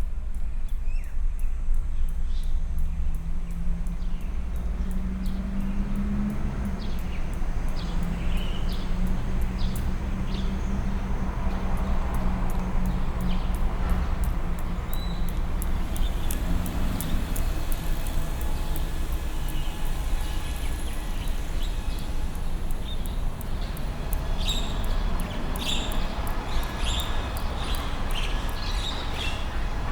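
Electroacoustic soundscape built from street field recordings and digital manipulation: a continuous low city rumble with a steady droning hum, scattered bird chirps, and rows of fine high clicks. The chirps grow busier in the last few seconds.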